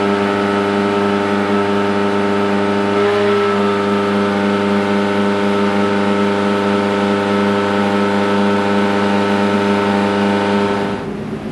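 2.5-litre Millington Diamond four-cylinder race engine running on a dyno, held at a constant high engine speed with an unchanging note, as in a steady-state hold while the ECU is mapped. Near the end the note falls away as the throttle is lifted.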